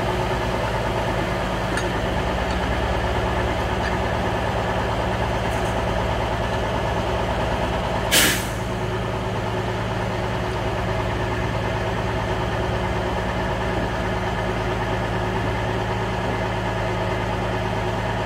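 Medium-duty tow truck engine running steadily at idle while its winch pulls a stuck box truck out of the mud. About eight seconds in, a short, loud hiss of air cuts through once.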